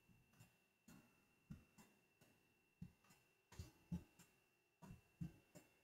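Faint, irregular clicks of a computer keyboard and mouse, about seven in all, as the Ctrl+J duplicate-layer shortcut is pressed and each new copy is dragged into place; otherwise near silence.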